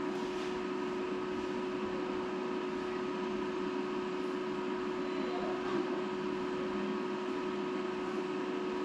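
HP LaserJet Pro MFP M428dw laser printer running steadily as it starts up after being switched on: a constant hum with one low steady tone and a hiss above it.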